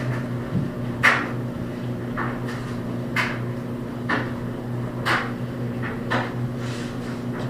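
Knocks of a utensil against a mixing bowl, about once a second, while slime is stirred and scraped, over a steady low hum.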